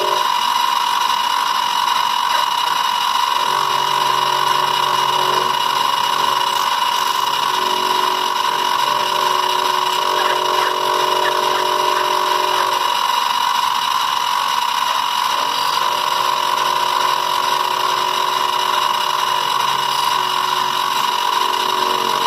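Benchtop milling machine running, its end mill cutting into a die-cast model locomotive frame: a steady high motor whine, with a lower cutting note that swells and fades as the cutter works the metal.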